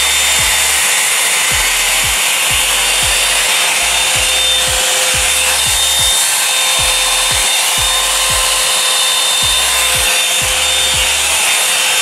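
Revlon One-Step Volumizer hot air brush blowing, a loud steady rush of air with a faint high motor whine. Under it, background music with a steady kick-drum beat and bass.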